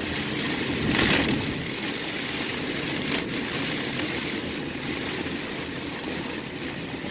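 Storm rain and wind beating on a car's roof and windshield, heard from inside the car: a steady hiss that swells louder about a second in.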